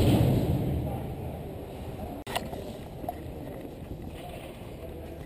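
Ice hockey rink ambience during play: a loud noise dies away in the first second, a sharp click comes about two seconds in, then the steady low hum of the arena with faint distant voices.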